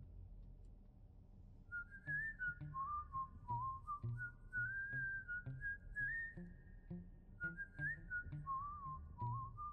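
Background music: a whistled tune wavering in pitch over a light, steady beat, the tune coming in about two seconds in.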